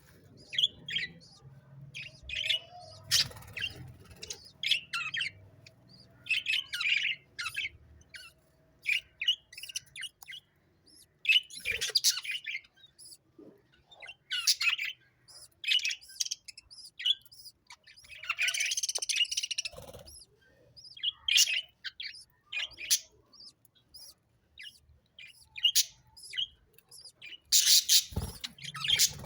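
Sparrows chirping: short, high chirps in irregular bursts, now and then several at once.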